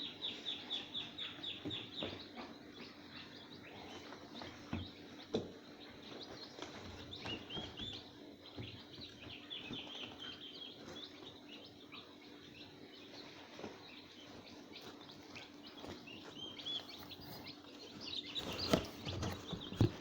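Young chicks cheeping: a quick run of high peeps at the start, then scattered peeps with further runs later, and a few light knocks near the end.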